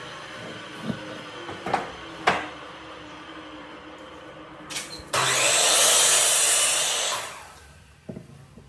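Woodworking workshop sounds: a steady hum with a few sharp knocks, then about five seconds in a sudden loud rush of hissing noise that lasts about two seconds and dies away.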